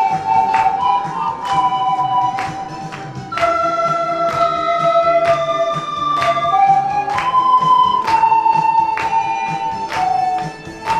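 Panflute ensemble playing a slow melody in long held notes over a backing track with a steady beat.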